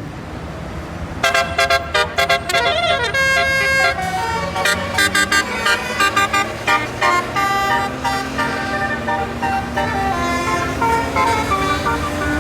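Basuri-type bus telolet horn, a multi-trumpet air horn, playing a quick melody of short pitched toots that starts about a second in, over the low noise of a running engine.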